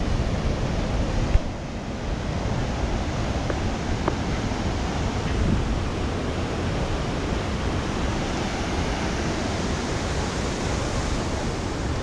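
Ocean surf breaking, a steady rushing noise, mixed with wind on the microphone. A short knock comes about a second and a half in.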